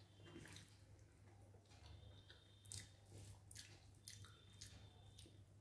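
Faint chewing and small wet mouth clicks of someone eating a spiced rice dish, over a steady low hum.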